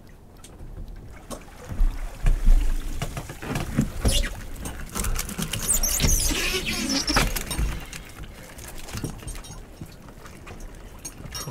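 A lobster pot being hauled aboard a small boat by hand: irregular knocks and scraping of the wet pot and its rope against the boat's side, loudest about two seconds in, with a squeaky rubbing around the middle.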